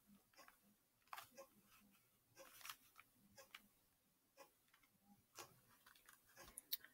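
Faint plastic clicks of a Rubik's cube's layers being turned, a twist every second or so with a couple of quick double clicks near the end, as the cube is turned into its solved state.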